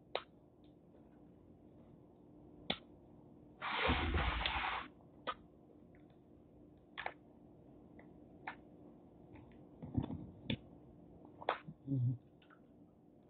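Eating sounds from king crab legs being bitten and picked: scattered short lip smacks and shell clicks, with one louder noisy burst lasting about a second near four seconds in.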